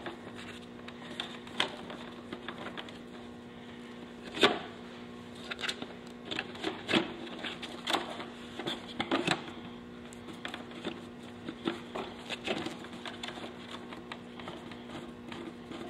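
Irregular small clicks and taps of a hex key turning a screw to hold a front speaker in a motorcycle fairing, metal tool knocking against the mount and plastic, with a sharper knock about four and a half seconds in. A steady low hum runs underneath.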